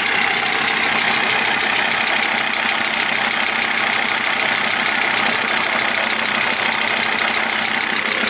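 Audi A6 C4 2.5 TDI five-cylinder turbo-diesel idling steadily and warm, with a ticking that comes and goes. The owner cannot tell whether it comes from a hydraulic lifter, the injection equipment or the injection pump.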